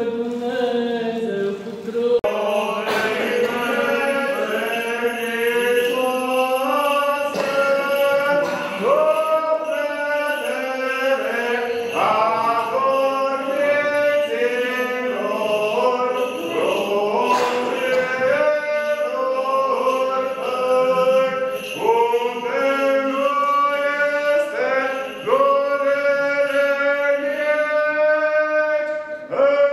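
Male voices chanting an Eastern Orthodox funeral hymn, a continuous melodic line with long held notes.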